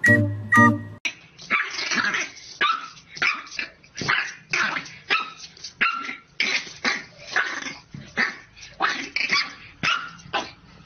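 Brief plinking music, then about a second in a puppy starts barking: a long run of short barks, about two a second, at its own reflection in a mirror.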